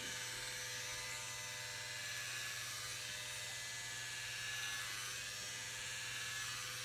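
Electric hair clippers buzzing steadily while cutting hair on a man's head.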